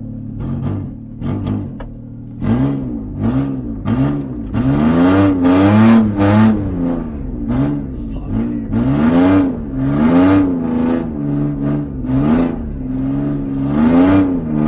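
Ford Ranger's 3.0-litre V6 revved hard over and over, its pitch climbing and dropping about once a second after a steadier first two seconds, with a rushing hiss at each peak.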